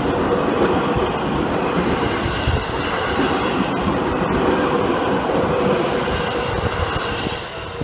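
Seibu 10000 series 'New Red Arrow' limited express electric train passing close by at speed. Its wheels and running gear rumble steadily over the rails, with a steady ringing tone mixed in.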